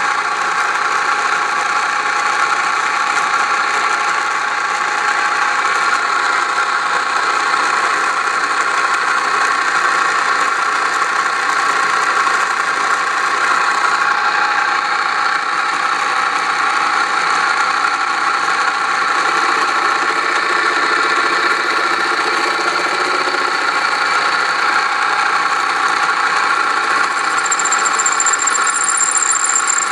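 Wade C.A.V. No. 1 plain turning metal lathe running steadily under power, its electric drive motor making a loud, steady mechanical whine. A high-pitched squeal joins near the end.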